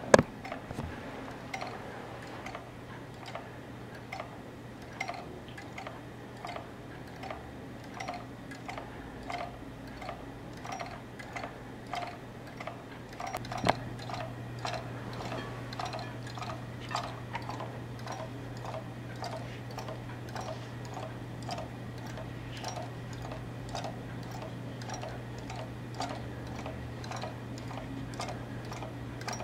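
Homemade magnetic wheel motor, a wooden-rimmed wheel with brass spokes, ticking about twice a second as it turns, over a steady low hum.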